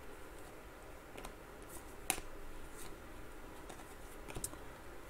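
Faint clicks and slides of 2020 Panini Chronicles football trading cards being flipped through by hand, a few separate ticks with the sharpest about two seconds in.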